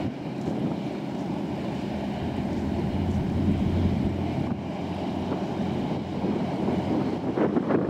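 High-speed passenger ferry passing at speed: a steady low engine drone with the rush of water along its hull and wake. Wind buffets the microphone, growing rougher near the end.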